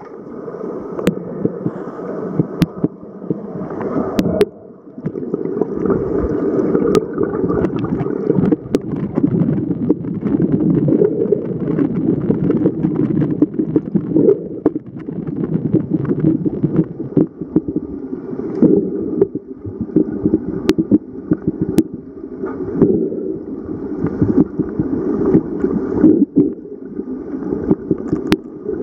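Muffled underwater sound through a camera housing in a pool: a constant, surging rush and gurgle of moving water, with a few sharp clicks scattered through it.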